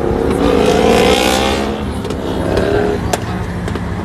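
A vehicle engine running, its pitch rising slightly in the first second and a half, with a hiss about a second in.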